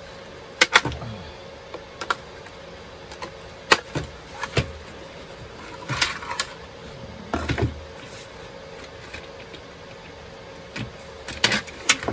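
Small plastic bar clamps being worked free of their backing card by gloved hands: scattered sharp clicks, knocks and rustles, loudest about half a second in and again near the end, over a faint steady hum.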